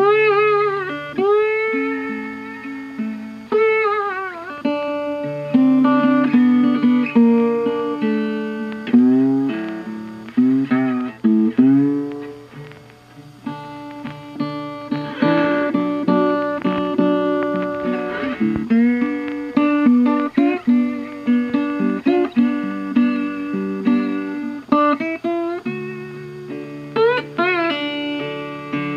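Background instrumental music with plucked string notes, some of them sliding in pitch.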